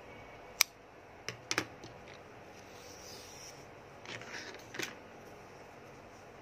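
Scissors snipping crochet yarn with one sharp click, followed by a few smaller clicks and light handling rustles.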